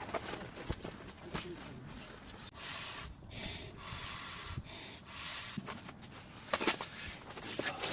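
Rustling and rubbing of camping gear being handled, in uneven swells of hiss, with a few sharp light knocks, the loudest about two-thirds of the way in.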